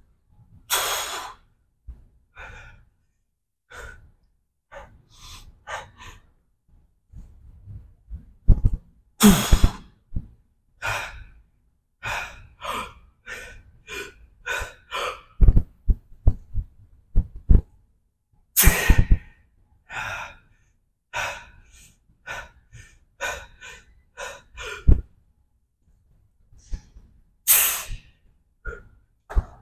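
A man breathing hard through a set of heavy squats: rapid, irregular gasps and forceful exhales, several of them loud, with a few dull knocks in between.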